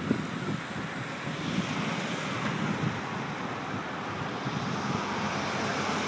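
Wind buffeting the microphone of a camera carried along on a moving bicycle, a steady rushing noise.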